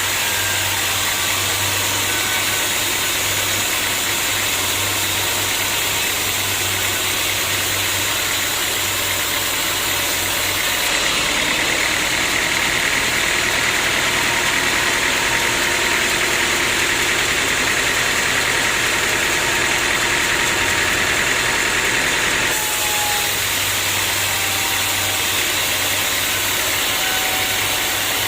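Sawmill machinery running steadily with a low hum. About 11 seconds in the low hum drops away and a harsher high hiss comes in, and it switches back about 22 seconds in.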